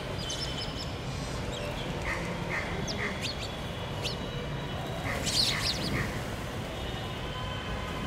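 House sparrows chirping: short, sharp, falling chirps scattered through, with a quick cluster about five seconds in, over a steady low background rumble.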